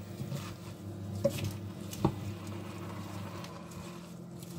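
A spatula stirring wilting spinach leaves with chunks of chicken and prawns in a stainless-steel pot: soft rustling and squishing, with two light knocks against the pot about one and two seconds in, over a low steady hum.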